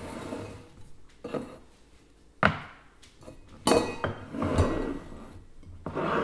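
Metal kitchen gear being handled on a counter: a lever-action lemon press and its stainless steel collecting cup knocking and clinking. One sharp knock about two and a half seconds in, then a run of clatter and clinks about a second later and again near the end.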